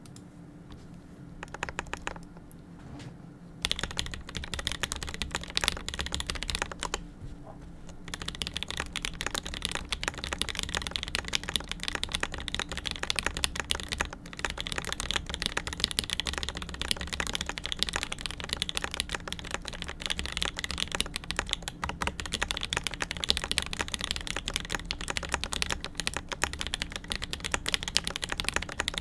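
Typing on an Abasic Secret Gold mechanical keyboard with lubed and filmed Vermillion Bird switches and GMK Godspeed keycaps. A few scattered keystrokes come first, then fast continuous typing from about three and a half seconds in, with a short pause around seven seconds.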